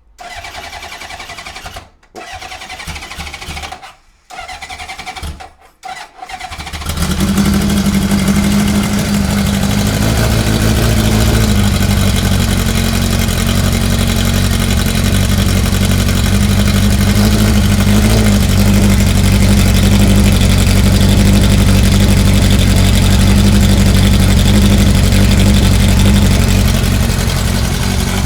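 Honda CB750K4's air-cooled inline-four being cranked in four short bursts, catching about six and a half seconds in and then running steadily: its first firing after a full restoration.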